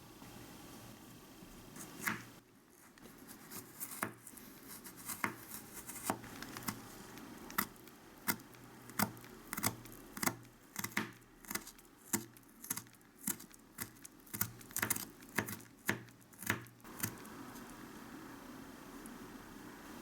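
Small knife chopping ingredients on a miniature cutting board: a run of short, sharp, irregular taps, about one to two a second and quicker in places, starting about two seconds in and stopping a few seconds before the end.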